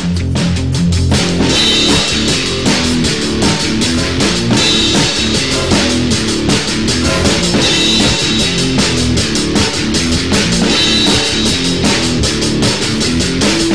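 Rock music soundtrack with a drum kit keeping a steady driving beat over bass and guitar.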